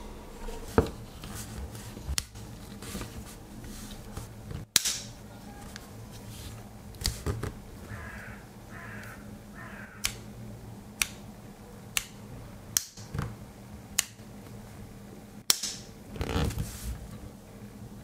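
Victorinox Tinker Swiss Army knife tools being opened and snapped shut against their springs: about a dozen sharp metal clicks, irregular at first and then about one a second in the second half, with a few soft rubbing sounds about halfway through.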